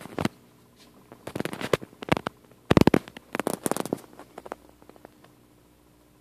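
Handling noise: bursts of crackles and knocks from the handheld camera being moved and rubbed, loudest about three seconds in, dying away after about four seconds, over a faint steady hum.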